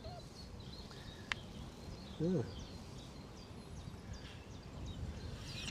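Faint outdoor ambience with small birds chirping here and there over a low rumble, and a single sharp click a little over a second in.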